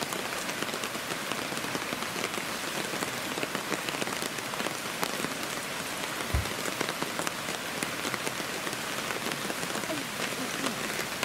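Steady heavy rain pattering on a camp tarp, with many fine individual drips. There is a single low thump about six seconds in.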